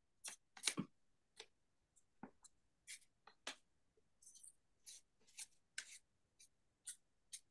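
Faint, irregular light clicks and taps, about three a second: fingers typing.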